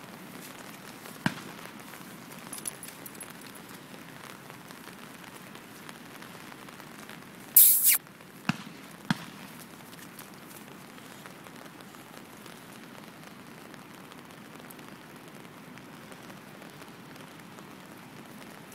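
Steady rain falling, with a few sharp knocks and one loud, brief rush of noise about eight seconds in.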